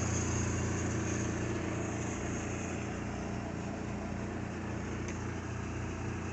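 Portable twin-tub washing machine running: a steady motor hum under an even hiss, easing off slightly in level.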